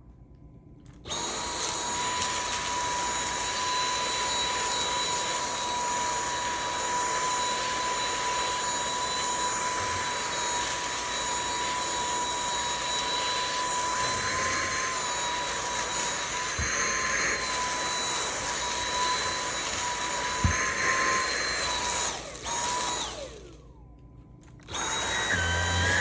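Dyson V8 Animal handheld cordless stick vacuum starting about a second in and running with a steady high-pitched whine. It stops briefly near the end and starts again just before the end.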